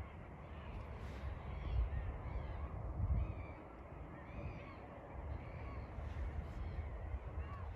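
A flock of birds calling over and over, many short calls overlapping, over a low rumble that swells twice in the first half.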